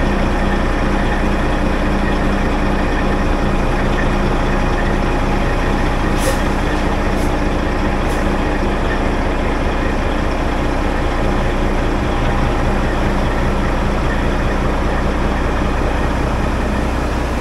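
Kenworth tri-axle dump truck's diesel engine running steadily, heard close to its exhaust stack, while the truck tips a load of dirt from its raised dump body. A few faint clicks about six to eight seconds in.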